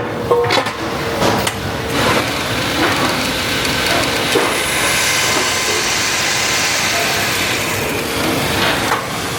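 Automatic punching machine at work: a quick run of sharp metal knocks in the first two seconds, then steady mechanical running with a hiss.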